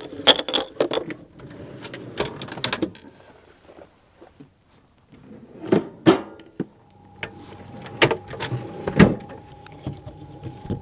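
Clicks, knocks and rattles of a camper van's exterior hatch latches and panel being handled, then a slide-out storage drawer pulled open with a couple of knocks; a few more knocks follow near the end.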